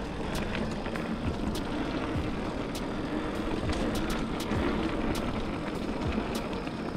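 Mountain bike rolling along a dirt singletrack: a steady rumble of tyres and wind with scattered sharp clicks and rattles from the bike.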